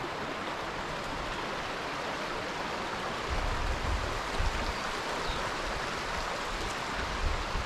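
Shallow moorland stream babbling over rocks, a steady rushing. Intermittent low rumbling on the microphone joins in from about three seconds in.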